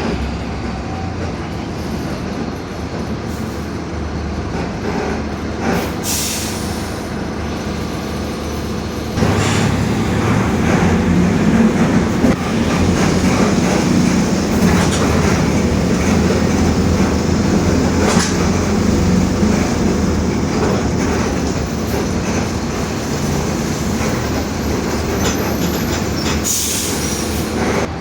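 Mercedes-Benz OF-1721 city bus's four-cylinder diesel and drivetrain running as the bus drives, with its differential growling. About nine seconds in the sound gets louder, with a stronger low drone that then holds.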